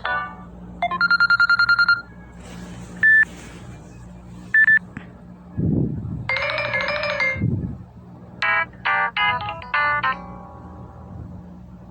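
Samsung Galaxy Tab S4 ringtones played one after another, each cut off after a second or two: a fast pulsing beep, a hiss with two short tones, a held electronic chord, then a quick run of melodic notes. Two dull low thumps fall near the middle.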